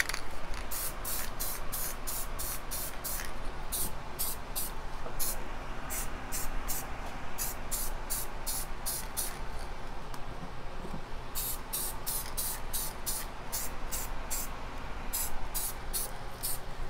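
Aerosol spray paint can hissing in short quick bursts, about three a second, in runs broken by pauses of a second or two: light misting passes of paint onto plastic brackets.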